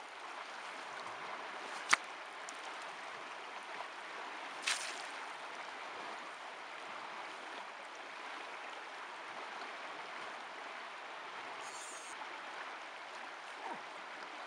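Steady rush of a flowing river. A single sharp click about two seconds in is the loudest moment, and a weaker short burst follows near five seconds.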